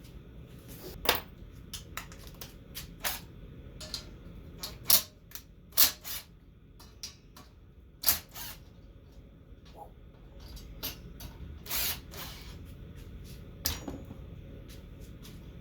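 Hand tools clicking and clanking on metal as a part is taken off a minibike: a dozen or so sharp, irregular knocks and clicks, the loudest grouped in the middle.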